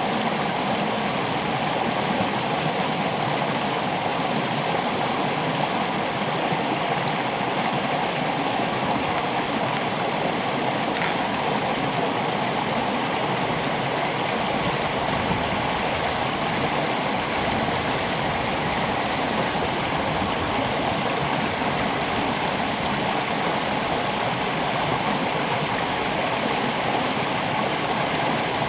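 Creek water rushing steadily over a small cascade and around rocks.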